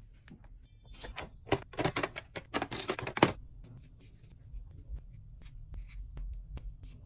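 ASMR handling sounds of hands putting away small accessories: a quick run of clicks, taps and rustles from about one to three seconds in, ending in a sharp knock, then fainter light taps as small jewelry is set into a velvet tray.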